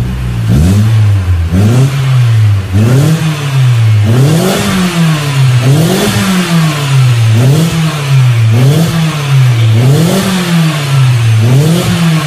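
Proton Inspira's four-cylinder petrol engine revved repeatedly in short blips, rising and falling about every second and a half. The exhaust sounds through a stainless steel muffler held up to the tailpipe to try out its tone.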